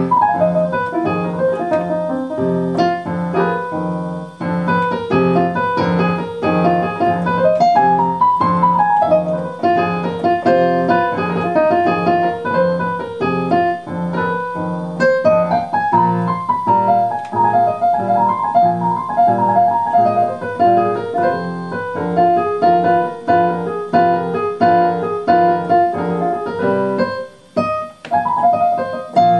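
Solo piano played on a Roland RD-700 digital stage piano: a steady repeated low accompaniment under a busy melody, breaking off briefly near the end before the playing resumes.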